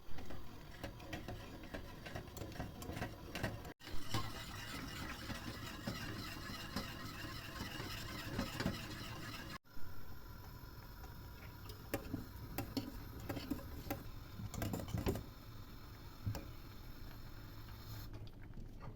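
Household handling sounds: a run of small clicks, taps and rustles from things being moved and worked by hand, in short pieces cut together, with breaks about four and ten seconds in.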